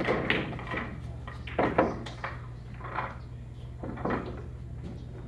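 Pool balls clacking on a pocket billiards table: a sharp click at the start, then several hard knocks, the loudest nearly two seconds in, and a couple more spaced about a second apart.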